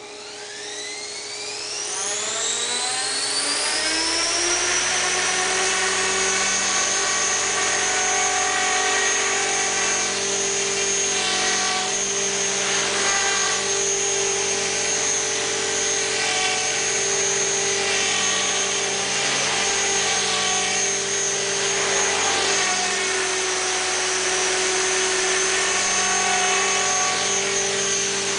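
Helicopter with its main rotor and tail blades set to turn in reverse, spinning up with a rising whine over the first few seconds. It then runs at a steady speed with a high, even whine.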